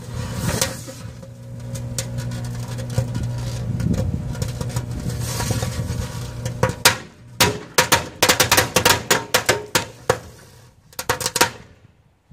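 A microwave oven runs with a steady hum while fireworks burn and hiss inside it. About seven seconds in, a rapid, irregular string of sharp bangs starts as the firecrackers packed inside go off, dying away shortly before the end.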